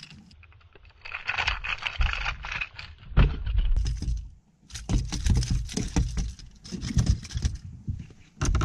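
Rapid, irregular jangling and clattering of a fishing lure's hooks as a small smallmouth bass flops on the line and is handled, in two spells with a short pause about halfway.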